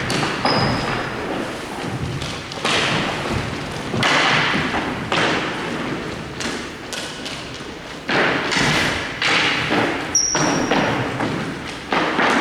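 Ice hockey play: repeated thuds and knocks with bursts of scraping noise in between.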